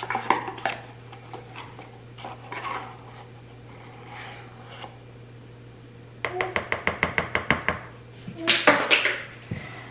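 A measuring spoon scooping baking soda out of its cardboard box: scattered scrapes and rustles, then a quick run of sharp taps, about eight a second, and a louder burst of knocks near the end.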